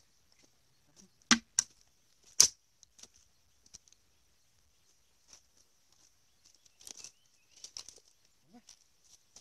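Sharp cracks and snaps of a dry-brush wood fire as its embers are raked with a stick: three loud cracks near the start, then a softer scatter of snaps later on, over a faint steady high hiss.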